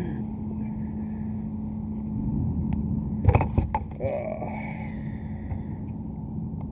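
Steady low rumble with a faint steady hum, and a quick cluster of knocks and clicks a little over three seconds in as a crankbait is worked out of a small bass's mouth.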